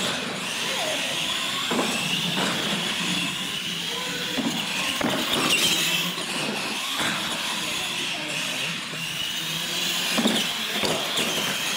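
Radio-controlled monster trucks racing: a steady high whine from their motors and gears, with several short knocks spread through it.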